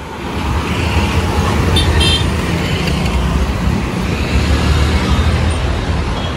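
Busy city road traffic: a steady rumble of passing cars and scooters, with a short double toot of a vehicle horn about two seconds in.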